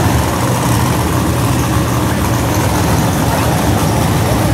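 Monster truck engines idling loudly and steadily after start-up.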